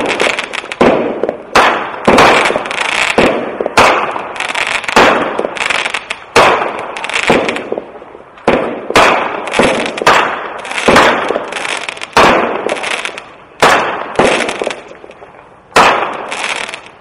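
36-shot consumer firework cake firing shot after shot, one or two bangs a second, with crackle peonies hissing and crackling after many of the breaks. The last shot goes off near the end and its crackle fades away.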